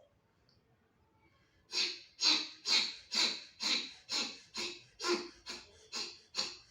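Rapid, forceful exhalations of a yogic breathing exercise (virechit kriya), the breath thrown out in short sharp puffs at about two a second. They start after a pause of under two seconds.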